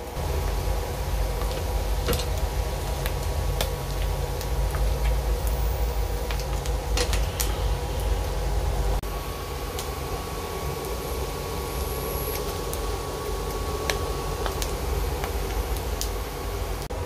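Pork belly cubes frying slowly in their own rendered fat under a mesh splatter screen: steady sizzling with scattered pops of spitting fat, over a low steady hum. The sizzle eases slightly about halfway through.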